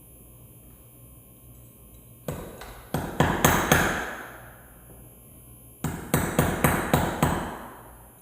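Hammer blows on metal, two quick runs of about five or six strikes each, every strike ringing and fading out.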